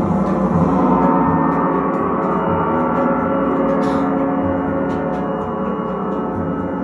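Gongs ringing together in a dense, steady wash of many overlapping tones.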